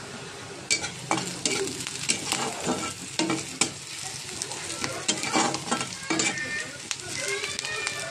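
Chopped onions sizzling in hot oil in a wok while a spatula stirs them, with irregular scrapes and knocks of the spatula against the pan over the steady frying and a few short squeaks near the end. The onions are being fried until reddish-brown.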